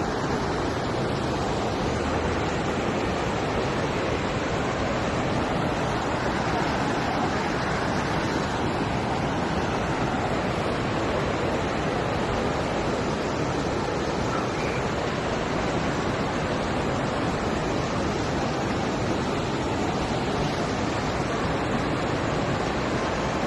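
Steady rushing of floodwater, an even, unbroken noise at a constant level.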